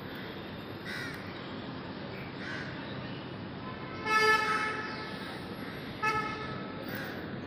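A crow cawing twice, a longer caw about four seconds in and a shorter one about two seconds later, over a steady background hum.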